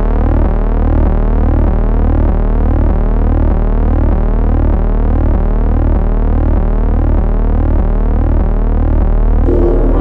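Electronic synthesized tone: a steady stack of held low tones with a repeating pattern of sweeping glides about twice a second, loud and unchanging.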